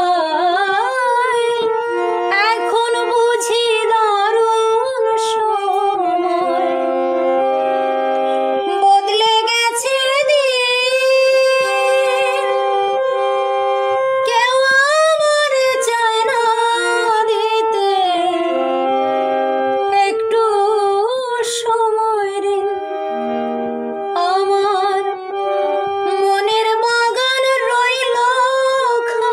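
A woman singing a Bengali song, her voice wavering with vibrato, over a harmonium playing held notes and chords that change in steps. In short pauses between sung lines, only the harmonium sounds.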